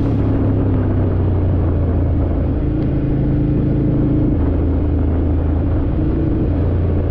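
Ducati Scrambler Desert Sled's air-cooled L-twin engine running steadily under way, its note dropping slightly about four seconds in.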